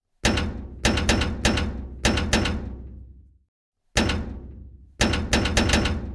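Heavy, booming impact sound effects, each a sharp hit that rings away: about six hits in a cluster, a pause, a single hit, then four quick hits near the end.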